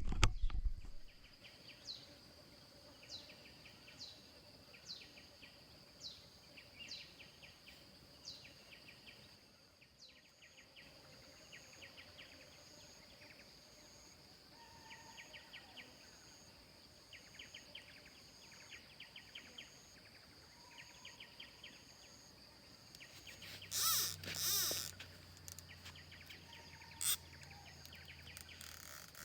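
Countryside insects and birds: a steady high insect drone, with short falling bird calls repeated about once a second for the first ten seconds and bursts of rapid chirping throughout. Near the end come two loud, short, noisy sounds, a low hum and a sharp click.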